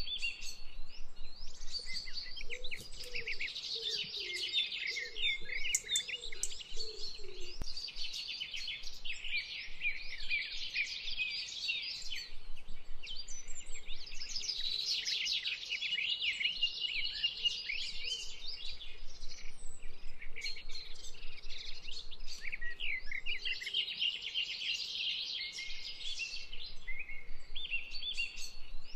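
A dense chorus of small birds chirping and twittering without pause, with a few lower calls in the first several seconds.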